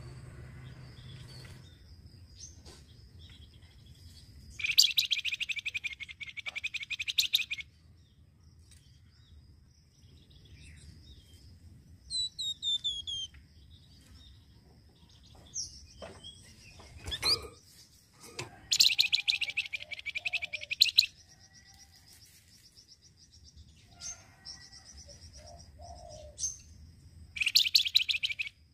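Flamboyan songbird giving its rapid, jingling 'receh' trill, a fast run of evenly repeated notes, in three bursts of two to three seconds each: about five seconds in, near the middle and near the end. Short whistled notes and sweeps from other birds come in between.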